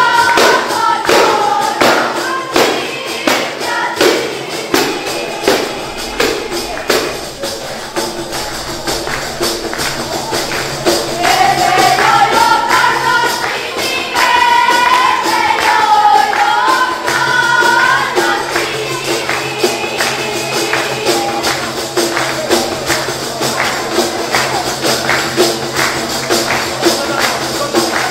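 Albanian def, large jingled frame drums, beaten by a group in a fast steady rhythm with the jingles rattling on every stroke. Voices sing a folk melody over the drums through the middle stretch.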